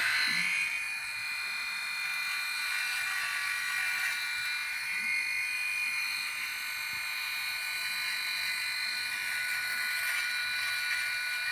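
Havells electric shaver running with its head held against the skin of the neck, a steady high-pitched whine.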